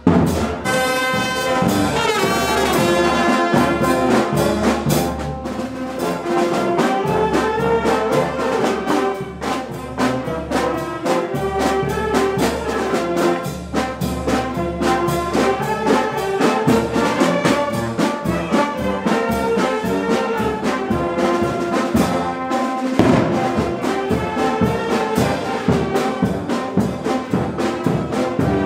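Brass band playing a pasodoble: trumpets and trombones carry the melody over a steady drum beat.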